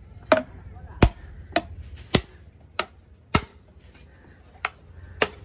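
Heavy machete chopping into a large sea conch shell on a wooden block to break it open: eight sharp strikes, mostly about half a second apart, with a longer pause just after the middle.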